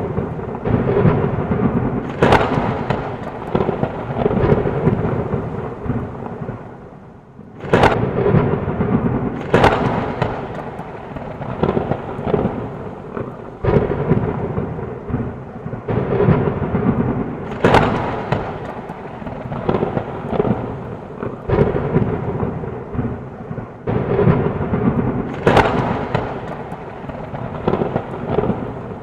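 Heavy rain with thunder rumbling throughout and a sharp thunderclap every few seconds. The storm briefly eases about seven seconds in, then a loud clap follows.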